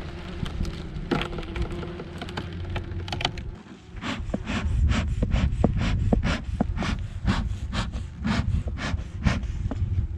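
Bee smoker's bellows being pumped, a quick even run of air puffs about three a second starting about four seconds in, with wind rumbling on the microphone throughout. A few scattered clicks come before the puffing.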